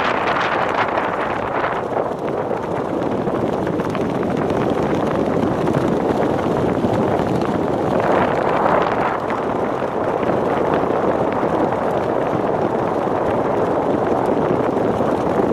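Wind rushing over the camera microphone of a skydiver flying under an open parachute canopy: a steady rush that swells briefly about eight seconds in.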